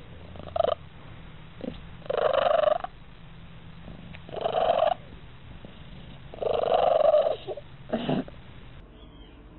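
Cat purring loudly right at the microphone, with a voiced, meow-like note on each breath, about every two seconds, over a steady low rumble.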